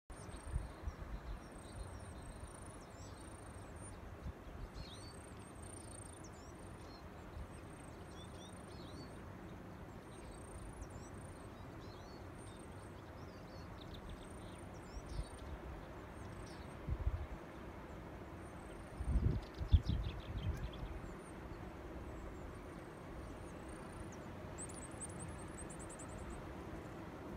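Small songbirds calling and singing: short high chirps scattered throughout, with a quick trill near the end. Wind buffets the microphone in low gusts a few times past the middle.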